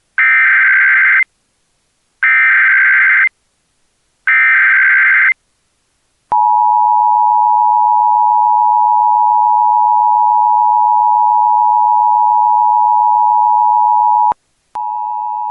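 Emergency Alert System alert tones: three one-second bursts of buzzing SAME digital header data, one every two seconds, then the steady two-tone EAS attention signal for about eight seconds before it cuts off. Near the end a quieter steady tone starts again.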